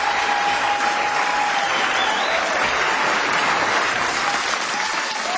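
Audience applauding steadily, a dense even clapping, with a single long held tone above it for the first couple of seconds.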